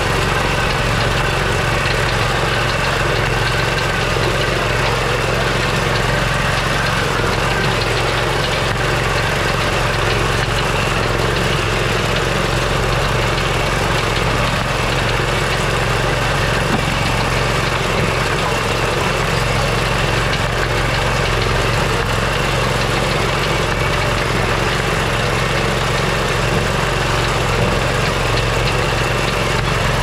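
Small air-cooled gasoline engine mounted on a horse-drawn corn binder, running at a steady speed to drive the cutting mechanism as the machine moves through standing corn.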